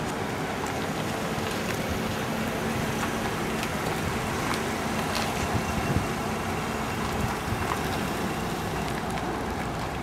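Steady outdoor noise of motor vehicles, with a faint engine hum held through the middle and wind rushing on the microphone.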